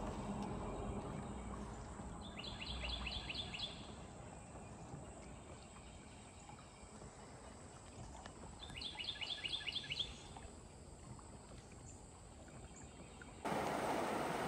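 A songbird sings twice, each phrase a quick run of about eight repeated notes, over a faint background hush. Near the end a steady rush of water starts abruptly and is the loudest sound: water pouring from an arched outlet in a stone wall into the river.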